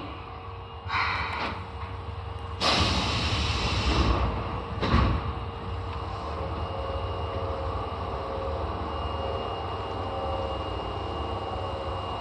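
Subway car doors at a station on an Osaka Metro Tanimachi Line 22-series train: a loud rush of air for about a second, then a single knock about five seconds in as a door shuts or opens. After that, the car's steady hum carries a faint high whine.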